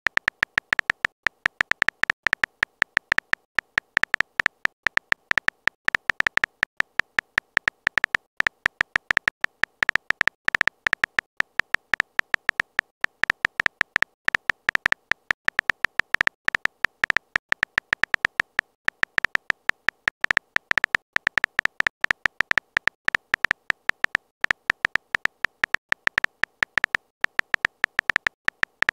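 Keyboard typing sound effect of a texting-story app: rapid, irregular short clicky beeps, one for each letter as a message is typed out.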